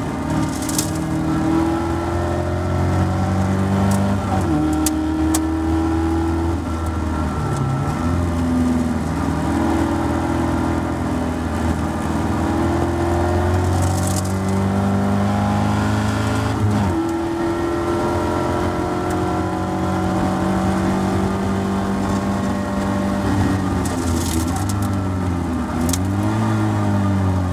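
Caterham Seven race car's engine heard from the cockpit under racing load, its pitch climbing through each gear and dropping back at the shifts, with a few sharper dips and re-revs at the corners. Brief rushes of noise come and go over it.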